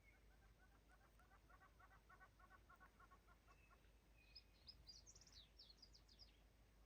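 Faint wild birds calling: a rapid, even series of clucking notes for the first four seconds or so, then a short burst of high, quick chirps from another bird that fall in pitch.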